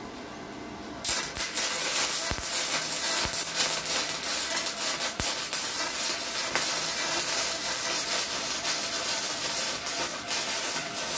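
Flux-core (self-shielded, gasless) MIG welding arc: 1.0 mm E71T-GS wire fed by a Redbo MIG-120 welder. The arc strikes about a second in and runs as a steady crackling hiss with spatter.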